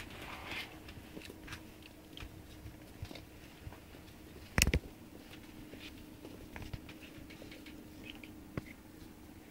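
Light, scattered clicks and patter of puppies' paws and claws on a hard wooden floor, with one loud knock about halfway through.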